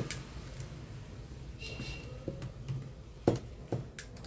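Cutting pliers snipping into the plastic housing of a hair dryer: a short squeak of plastic, then three sharp clicks in the last second and a half.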